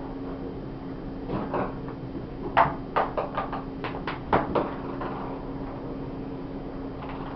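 Ping-pong ball clicking and bouncing on the hard surface of a bathtub as a cat bats it around: a quick, irregular run of light clicks lasting about three seconds, starting a little over a second in.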